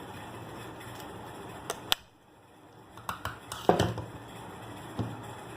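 Sharp metal clinks and knocks as the cut tin casing of a bike horn is pried open: a couple of taps just before 2 s in, then a cluster about 3 to 4 s in, the loudest just under 4 s. A steady background noise drops away about 2 s in.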